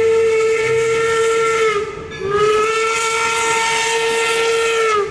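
Steam locomotive whistle blowing two long blasts over a hiss of steam, with a short break about two seconds in; each blast sags a little in pitch as it dies.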